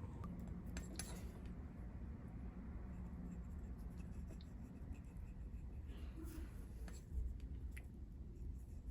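Faint scratching and rubbing of hand work on leather, with a few light clicks, over a low steady hum.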